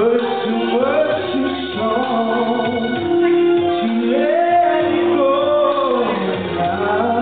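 A man singing karaoke into a microphone over a recorded backing track, with held, sliding vocal phrases above the steady accompaniment.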